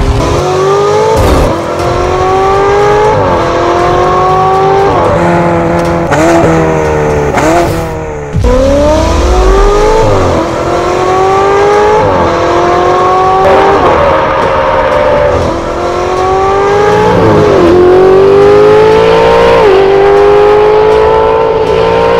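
Two Ferrari 488 GTB twin-turbo V8s with Fi Exhaust valved cat-back systems, accelerating hard through the gears. Each engine's pitch climbs, then drops at an upshift roughly every two seconds, and the two often overlap. There is an abrupt break about eight seconds in.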